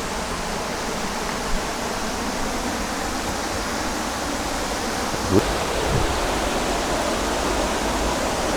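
Waterfall rushing: a steady, fairly loud hiss of falling water that grows a little louder about six seconds in.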